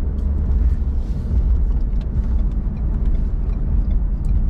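Steady low rumble of a car heard from inside the cabin, with a few faint light ticks over it.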